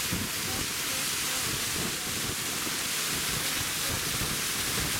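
Steady rushing noise aboard a fast-moving open river boat: wind and water spray with an uneven low rumble beneath. It starts and stops abruptly.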